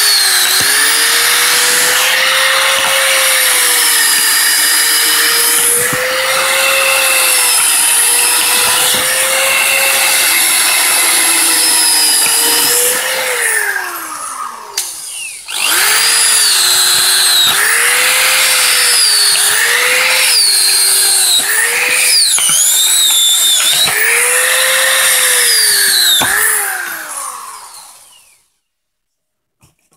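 Cordless drill driving a screw-cone wood splitter bit into a log. The motor whines steadily, its pitch sagging and recovering again and again as the cone bites into the wood. It stops briefly about halfway, then runs in several more loaded surges before winding down near the end.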